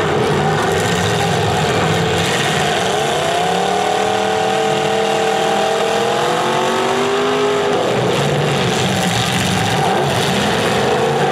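Several demolition derby cars' engines running and revving together. One engine revs up a few seconds in, holds high, and drops back about three-quarters of the way through.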